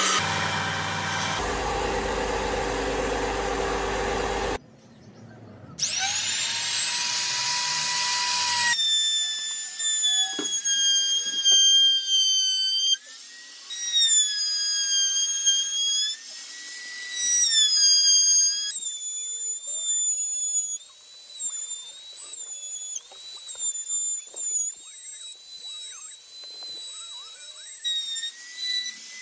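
A Ryobi belt and disc sander runs as the edge of a round wooden tabletop is sanded. After a short pause, a Ryobi trim router spins up with a rising whine about six seconds in, then routes around the tabletop's edge, its high whine dipping in pitch again and again as the bit cuts into the wood.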